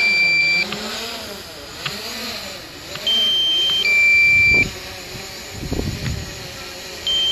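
Small quadcopter drone hovering just above the deck, its motors whining and wavering up and down in pitch. A loud two-tone electronic warning beep, a higher note then a lower one, repeats about every four seconds. Two short low rushes of air come about four and a half and six seconds in.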